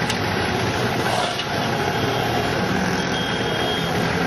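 Heavy city traffic close by: the engines of auto-rickshaws, motorcycles and a goods truck running and idling in slow-moving traffic, a steady dense rumble.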